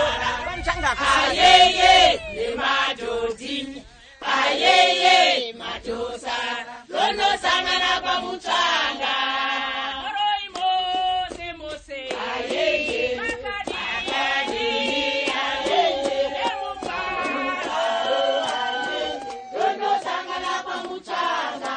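A group of women singing together in chorus, unaccompanied, with short breaks between phrases.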